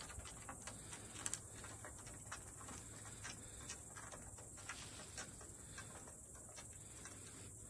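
A cat's paws and claws tapping and scratching faintly on a sloping plank as it climbs, a scatter of light irregular clicks with a quick pair about a second in, thinning out in the last couple of seconds. A faint steady low hum lies underneath.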